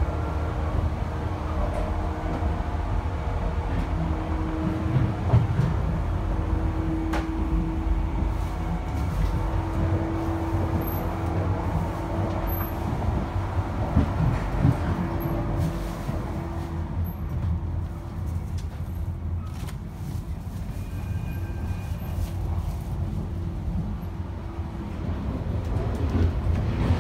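Running noise inside a moving 485-series electric train car: a steady low rumble of the wheels on the track, with a faint steady hum above it. It eases a little past the middle and builds again near the end.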